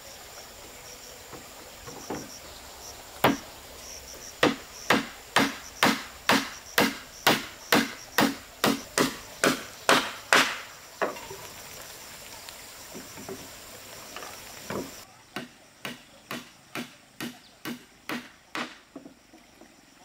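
Hammer blows on the wooden planks of a plank footbridge, steady at about two a second, in two runs, the second one quieter after a pause. A steady high insect drone sounds behind the first run.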